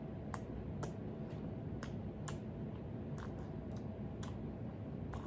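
Someone chewing crisp jianbing (Shandong pancake), a string of short dry crunching clicks, roughly two a second at an uneven pace, over a steady low hum.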